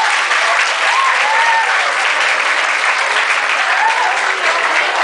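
A small group of people clapping steadily, with a few voices calling out over the applause.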